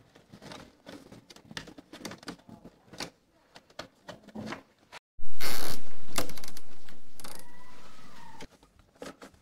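Gloved hands fastening plastic zip ties around wiring in a metal breaker panel: scattered small clicks and rustles, then a much louder rasping stretch a little past halfway that fades away over about three seconds.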